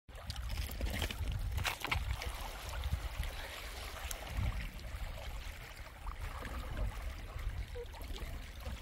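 Steady rush of flowing water, with a few faint knocks about a second in.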